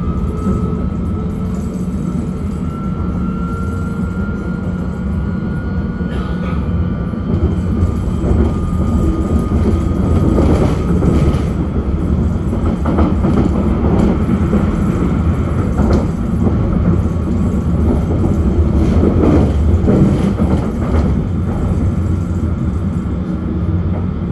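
London Underground S7 Stock train on the Hammersmith & City line running at speed, heard from inside the carriage: a steady low rumble with a whine that rises slowly in pitch over the first six seconds. After that, irregular knocks and clatter from the wheels on the track come through the rumble.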